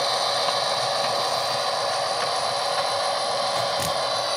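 Sound decoder in an HO-scale SD40-2 model diesel locomotive playing a steady diesel engine running sound through its small onboard speaker as the model rolls slowly along the track. A single short click comes near the end.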